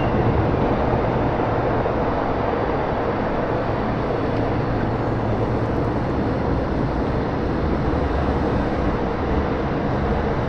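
MTR M-train electric multiple unit running into an underground station platform: a steady rail rumble with a faint even hum.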